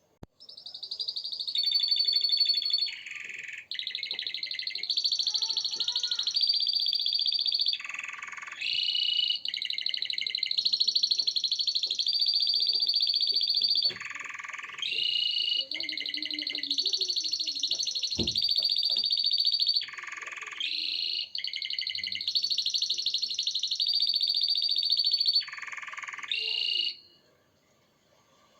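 Domestic canary singing a long, nearly unbroken song of rapid trills and rolls, dropping into a lower, deeper roll about every six seconds. The song stops about a second and a half before the end.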